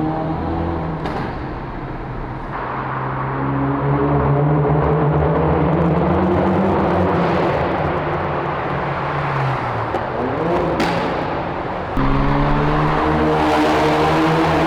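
Mk3 Ford Focus RS's turbocharged 2.3-litre four-cylinder engine and Scorpion cat-back exhaust pulling under acceleration, revs climbing steadily. Revs drop off near ten seconds in with a short sharp crack, then it pulls hard again, suddenly louder, from about twelve seconds.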